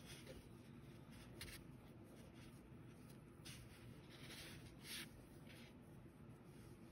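Faint rustling of yarn and fingers on a pipe cleaner as yarn is wrapped around a small doll's body, a few soft brief rustles over near-silent room tone.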